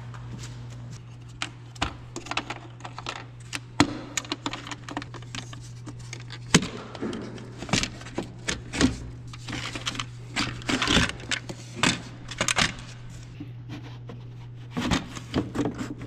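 Clicks, knocks and plastic rattling as the air filter housing on a Bobcat S570 skid steer is opened and the old air filter worked loose by hand, over a steady low hum.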